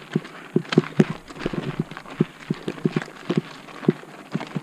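Mountain bike rolling over a loose, rocky trail: irregular knocks and clicks, several a second, as the tyres and frame hit stones.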